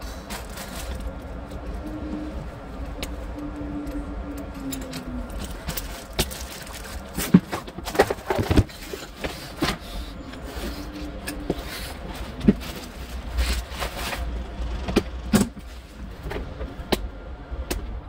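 Scattered clicks and knocks, several sharp ones in the middle and later part, over a steady low rumble. A faint hum rises and falls during the first few seconds.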